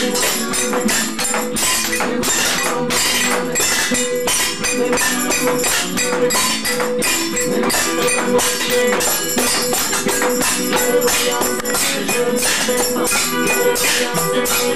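Kitchen-band percussion: metal spoons and other kitchen utensils clattered and shaken in a fast, steady rhythm, jingling like a tambourine, over a sustained note.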